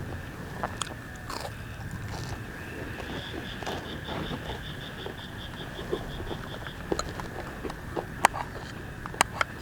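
A person eating and chewing crunchy fried food, with a few sharp clicks. Behind it are a steady high drone and, through the middle, a rapid pulsing call of about four to five beats a second, typical of forest insects.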